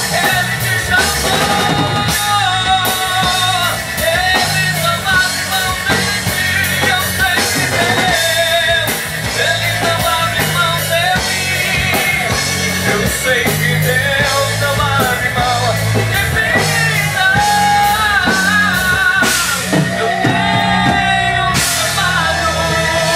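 Christian rock band playing live, with a drum kit and a singing lead voice over bass and other instruments.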